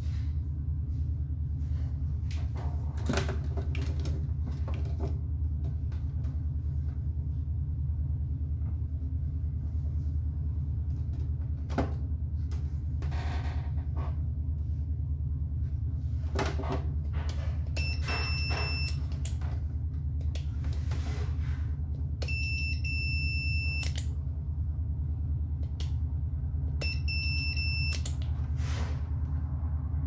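Multimeter continuity beeper sounding in three short spells of a steady high beep in the second half, as the test probes touch the X-ray exposure switch's wires: the beep signals a closed circuit. Light clicks of wire and probe handling sit over a steady low rumble.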